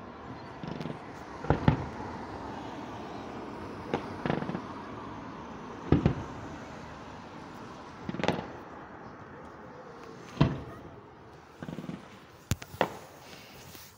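Aerial firework shells bursting, a sharp bang about every two seconds with a short rumble after each, the last two coming in a quick pair.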